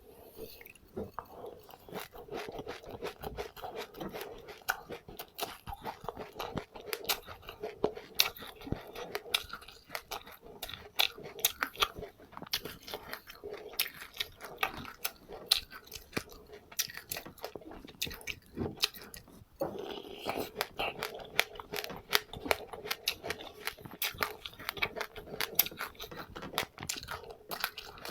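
A person chewing seeds close to the microphone: a dense, irregular run of small crisp crunches and clicks with wet chewing between them.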